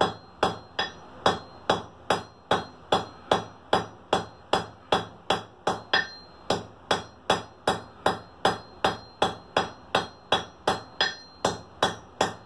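Hand hammer striking red-hot steel on an anvil in a steady rhythm, about three blows a second. The blows are knocking down the back corners of a forged barbecue fork's tines.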